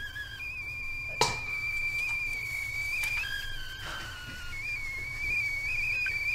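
Stovetop kettle whistling at the boil: a high, slightly wavering tone that jumps to a different pitch a few times. A single sharp knock sounds about a second in.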